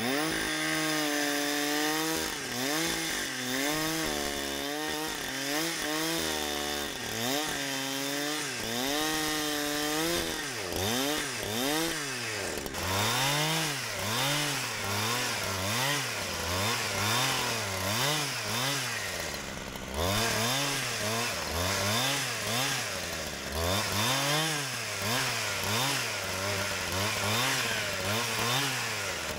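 Two-stroke chainsaw ripping lengthwise through a spruce log to mill a board, its engine pitch rising and falling again and again as the chain bogs under load and recovers. The pitch sits higher for the first ten seconds or so, then lower with deeper dips.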